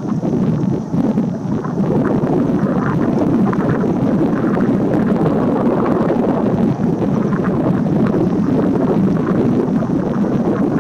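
Wind buffeting the microphone: a loud, steady low rumble with no bird calls standing out.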